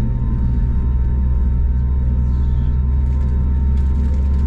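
Cabin noise inside an Airbus A321neo taxiing: a steady, loud low drone from the engines at taxi power, with a constant whine over it and no spool-up.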